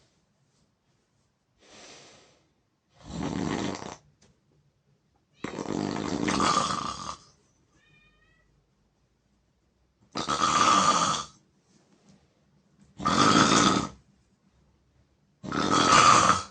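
A person snoring loudly while asleep: five loud snores of about a second each, two to four seconds apart with near-silent pauses between, after a fainter one near the start.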